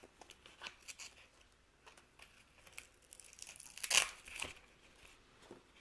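Hook-and-loop (Velcro) strap on a plastic knife-sheath mount being handled and pulled apart, with faint clicks and rustles and one short rip about four seconds in.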